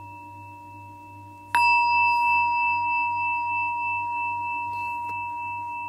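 A singing bowl rings softly and is struck again about a second and a half in. The strike brings up a loud ring of several steady tones that slowly fades away.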